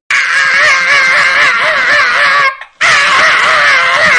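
A young man screaming in a high, wavering voice: two long cries, the first breaking off about two and a half seconds in and the second starting a moment later.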